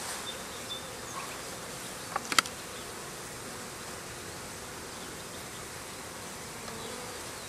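Honeybees buzzing steadily around an opened package of bees. About two seconds in come a couple of sharp clicks as the hive tool works at the package's syrup can.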